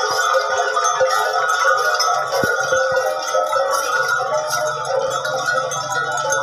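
Many cattle neck bells jangling and clanking together continuously as a herd of Cholistani cattle walks along, with scattered sharp knocks. A low steady hum joins about four seconds in.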